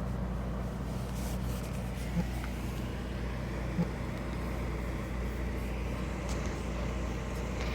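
Steady low electrical hum with faint hiss from a radio receiver between broadcasts, with two faint clicks about two and four seconds in.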